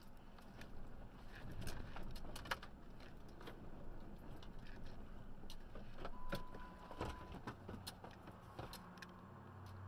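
Scattered clicks, knocks and rattles inside a car over a low engine hum. A single steady electronic beep lasts about a second, a little past the middle.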